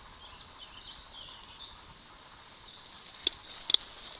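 Quiet riverside ambience: a steady high-pitched buzz, with a few faint bird-like chirps in the first second and a half. Two sharp clicks close together just before the end.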